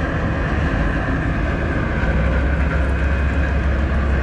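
Steady rumble and hiss of road and tram traffic, the low rumble growing louder about halfway through.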